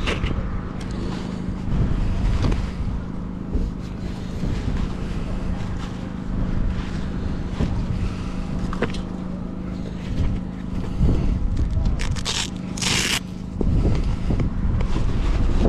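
Strong wind buffeting the microphone in a steady low rumble, with a low hum under it that stops a couple of seconds before the end. Scattered small clicks, and a short, loud scraping hiss about twelve seconds in.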